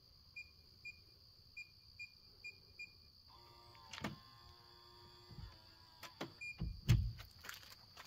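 Digital keypad deadbolt being unlocked: six short high beeps as the code is keyed in, then the lock's motor whirs for about two seconds as it draws the bolt back. Another beep follows, then the latch clicks and the door thumps as it is pulled open, the loudest sound.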